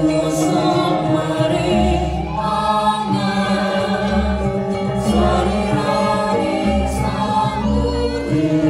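A women's choir singing a Balinese sandhya gita, with gong kebyar gamelan accompaniment: ringing metallophones under the voices and deep pulses from the gongs.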